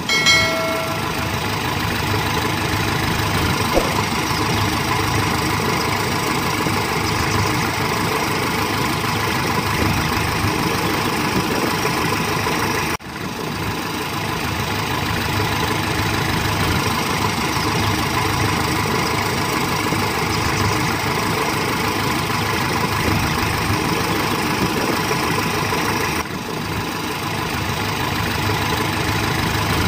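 Recorded engine sound of a toy JCB backhoe loader, a steady idling diesel rumble with a knock. It breaks off for a moment twice, about halfway and again near the end, and then carries on.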